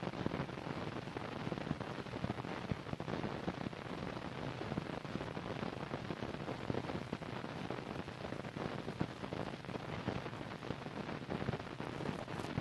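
Steady hiss with faint scattered crackles, the surface noise of an old film soundtrack, with no machinery or voice standing out.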